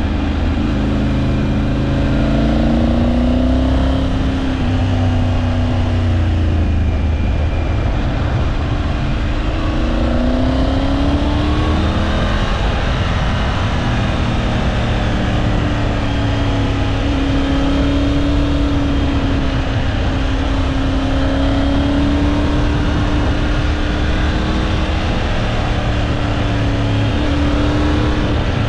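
Triumph Tiger 900 Rally Pro's three-cylinder engine running on the move, its pitch rising and falling repeatedly as the revs change through the bends, over a steady rush of road and wind noise.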